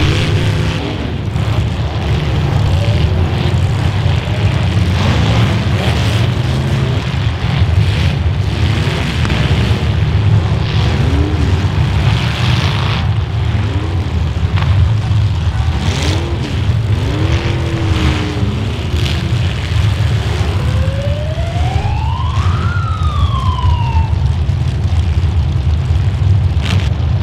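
Demolition derby cars' engines running and revving, their pitch repeatedly swinging up and down, with several sharp crashes of cars colliding. Past the middle one engine revs hard, climbing high in pitch for about two seconds, then drops back.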